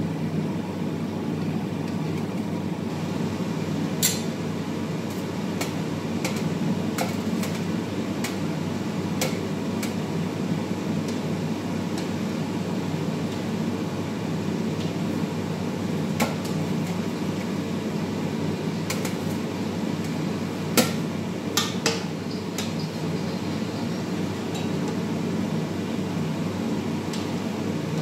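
Metal skimmer clinking against the rim of a pot while fritters are lifted out of frying oil: a scatter of sharp metallic clinks, the loudest about three quarters of the way through, over a steady low rumble.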